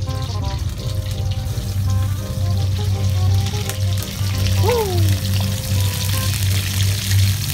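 Pieces of salted fish frying in hot oil in a wok, the oil sizzling and spattering, growing louder after about a second and a half as more fish goes in.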